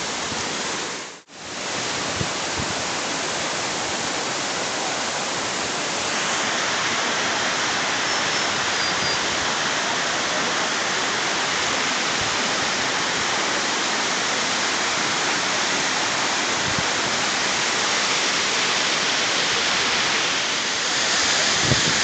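Small mountain waterfall splashing down over rocks: a steady, dense rush of water. It drops out briefly about a second in and comes back slightly louder about six seconds in.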